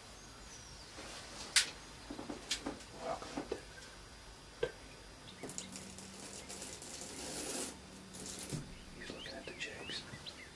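Scattered sharp clicks and rubbing, scraping noises close to the microphone, with about two seconds of steady hiss and a low hum in the middle. Small birds chirp near the end.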